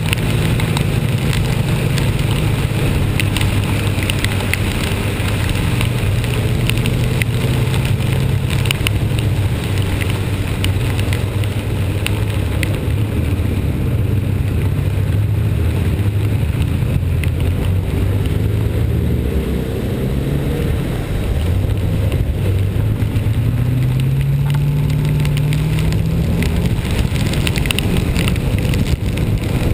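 Vehicle engine running on the move, its pitch wavering and then climbing for several seconds near the end, over a steady hiss of rain and wet road.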